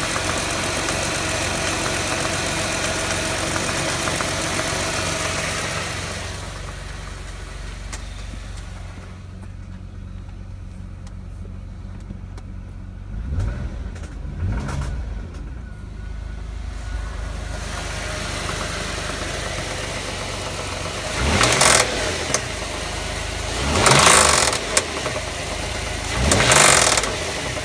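2006 Jaguar X-Type's 3.0 V6 engine running, settling to a quieter idle about six seconds in, then revved in short blips: two small ones, then three bigger ones a couple of seconds apart, each rising and falling in pitch. The owner reports a ticking, knocking noise from this engine under acceleration.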